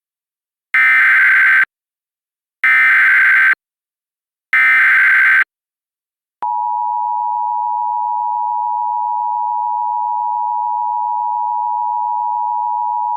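Emergency Alert System tones: three bursts of SAME digital header data, about a second each, then the steady two-tone EAS attention signal (853 and 960 Hz) starting about six seconds in. This is the header and attention signal that open a new alert.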